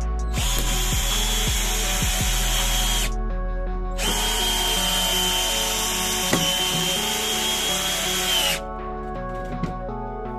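Parkside PBSA 12 E4 12 V cordless drill driving a long wood screw into a timber beam, motor whining steadily. It runs twice: a short run starting about half a second in, then a longer run from about four seconds in that sets the screw home and stops near the end.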